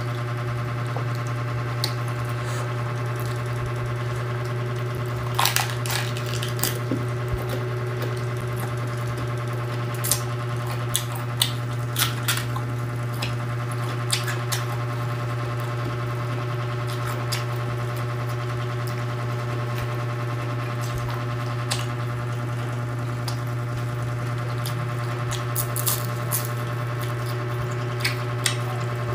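Chewing and crunching of raw cabbage leaves, heard as scattered short crunches over a steady low hum.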